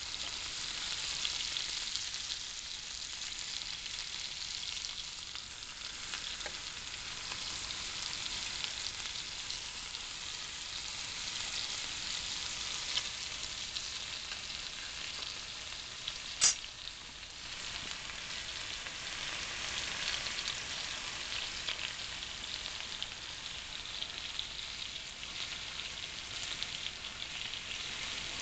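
Beef steaks frying in a 10-inch cast iron grill pan: a steady crackling sizzle. A single sharp click about sixteen seconds in.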